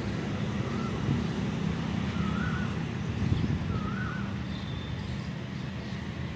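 Outdoor background sound: a steady low rumble, with a bird giving short warbling calls about every second and a half and faint high chirps.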